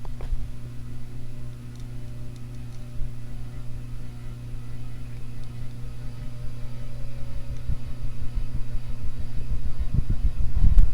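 SMC KA36 metal-blade ceiling fan running, its motor giving a steady hum, with gusts of air from the blades buffeting the microphone as a low rumble that grows stronger near the end.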